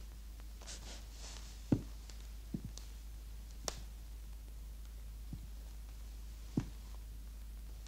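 Quiet room tone over a steady low hum. A brief soft rustle comes near the start, then about five short knocks and clicks follow, roughly a second apart.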